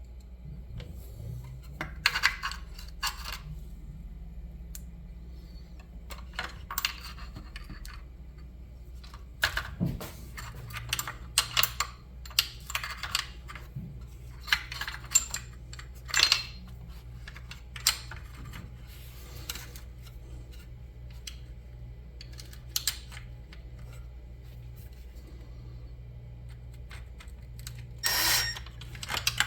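Metal hardware and hand tools clinking and clicking during suspension hinge pin work: scattered short taps and brief rattles, over a steady low hum.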